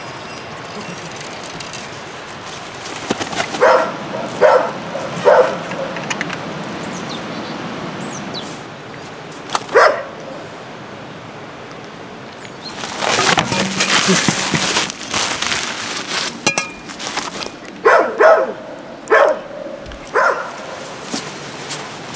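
A dog barking in short bursts: a quick run of barks a few seconds in, a single bark about halfway, and another run near the end. A louder stretch of noise lasting a couple of seconds falls between them.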